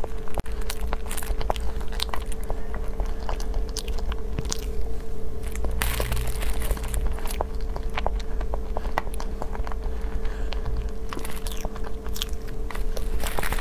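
Close-miked mouth sounds of eating a soft layered cream cake: biting and chewing with many small clicks. About halfway through, a metal spoon scoops from a plastic tub.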